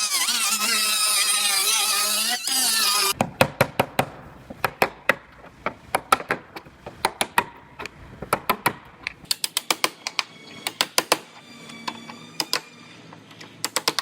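A pneumatic cutoff tool cuts sheet metal for about three seconds with a high, wavering whine that drops as it bites. It is followed by a long run of sharp metallic knocks in irregular clusters of two to five strikes.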